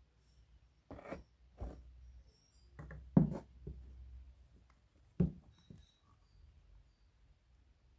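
Scattered knocks and clatters of hard plastic being handled: a couple about a second in, a louder cluster around three seconds, and one sharp knock just after five seconds. The likely source is the scooter's plastic speedometer cluster and its cover knocking against the hand and the box.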